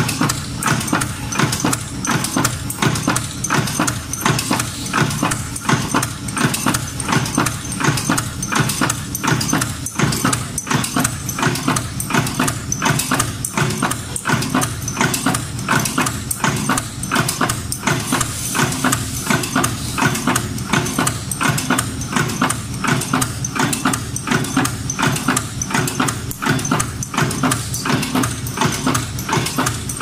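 Automatic steel buckle making machine running, its tooling cutting and bending steel strip into strapping buckles with a steady, rapid rhythm of metallic clacks.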